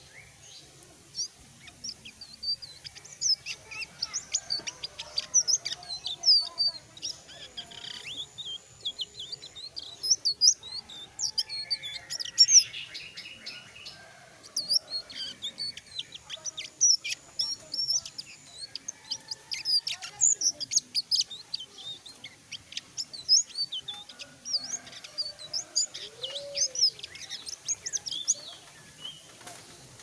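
Caged selendang biru singing in full voice, a long run of rapid high chirps and twitters with a short pause about halfway through. It is a bird that is starting to open up and sing freely ('gacor').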